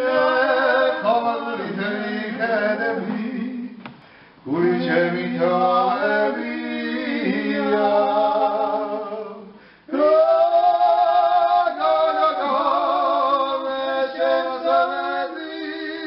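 Unaccompanied traditional Georgian polyphonic singing: several voices sustaining notes together in close harmony, with short pauses between phrases about four and ten seconds in.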